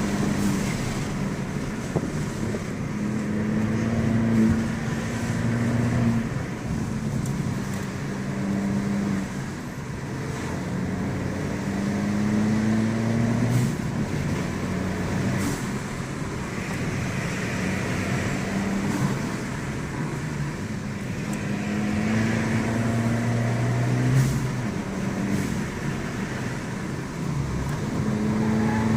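Abarth 595 Pista's turbocharged 1.4-litre four-cylinder on its stock exhaust, accelerating hard. The engine note climbs in pitch, drops back at each lift or gear change, and climbs again, about five times.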